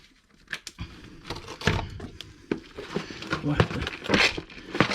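A run of irregular clicks, knocks and rustling, starting about a second in, from hands handling tools and materials during a shed-wall repair.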